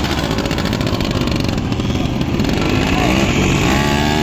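Small quad bike (ATV) engine running as the quad is ridden past, with people's voices around it.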